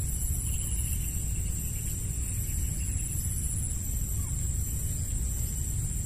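Wind rumbling on the microphone in a steady low buffeting, with a thin, steady high-pitched whine above it.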